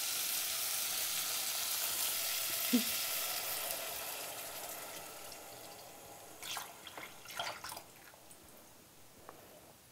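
Coconut milk pouring from a can into a pot of frying onions and red peppers. The sizzle and splash fade steadily over several seconds as the liquid covers the vegetables and the pan cools. A few light clicks follow near the end.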